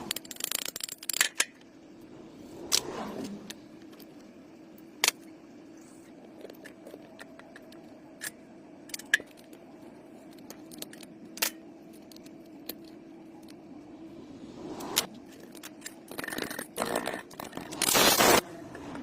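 Small metal parts clicking and scraping now and then over a steady low hum, with a louder stretch of scraping near the end.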